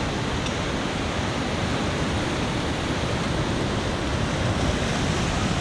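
Steady rush of ocean surf on a rocky shore, with wind on the microphone.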